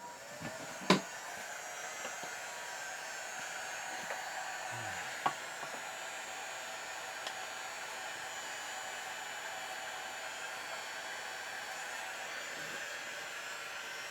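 Hand-held hot-air blower running steadily, spinning up at the start, used to heat a dented blow-molded plastic chainsaw case so the dent softens and pops out. A sharp click about a second in and a single knock about five seconds in.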